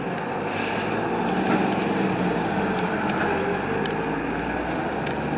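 Truck engine running steadily, with a short hiss about half a second in.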